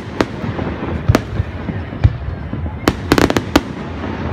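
Fireworks going off: single sharp cracks about a second apart, then a quick run of five or six cracks about three seconds in.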